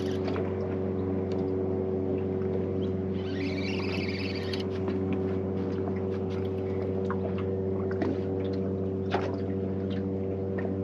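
Boat motor running with a steady, even hum, joined twice by a brief higher rasp and by a few light clicks.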